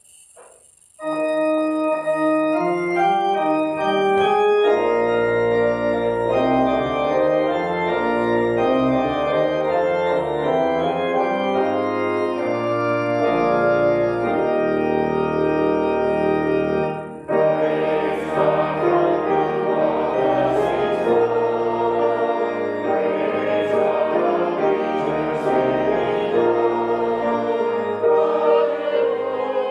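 Church organ playing a hymn in held chords, starting about a second in. About halfway through, congregational singing joins the organ.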